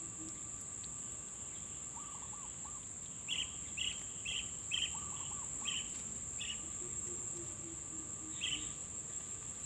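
Steady high-pitched insect drone, with rows of short chirps repeated about twice a second in the middle and a few soft arching whistled notes.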